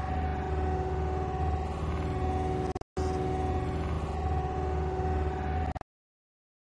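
A boat's motor running steadily: a low rumble with a steady hum. It drops out for a moment about three seconds in and cuts off suddenly near the end.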